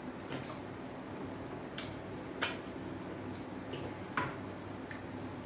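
Quiet eating sounds of okra soup and pounded yam: a handful of short scattered mouth clicks and smacks over a faint steady room hum.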